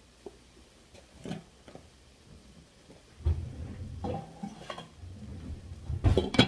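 Cookware handled on a kitchen stove: a few light knocks early on, then a low rumble with scattered clicks, and a quick cluster of louder clanks near the end.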